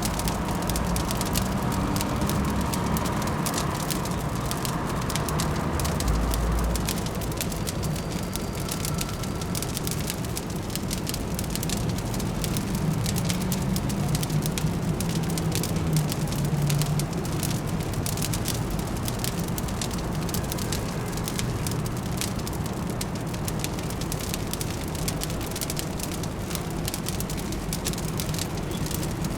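Fireplace fire crackling with many irregular small pops, over a steady low city hum.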